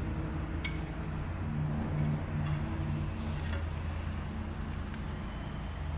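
Milling machine running with a steady low motor hum, with a few light metallic clicks and a brief hiss about halfway through.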